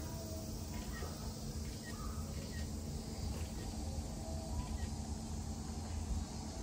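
Outdoor background sound at a zoo enclosure: a steady low rumble and hiss with a few faint, short, high chirps. The tiger walking past makes no distinct sound.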